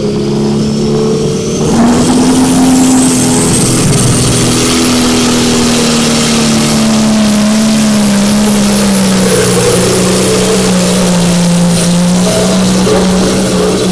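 Diesel semi-truck pulling a weight-transfer sled at full throttle: the engine opens up about two seconds in, with a high whistle climbing over the first few seconds. The engine note then sinks slowly in pitch as the sled's weight builds against it.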